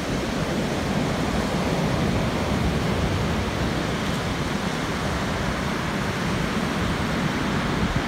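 Rough Black Sea surf breaking along the shore: a steady, even rushing noise.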